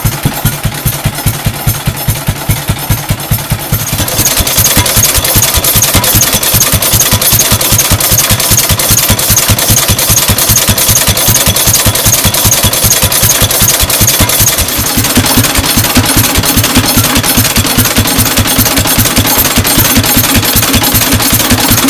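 Vintage tractor and stationary engines running, close up, with a steady rapid chugging beat. The sound grows louder and brighter about four seconds in and changes character again around fifteen seconds in.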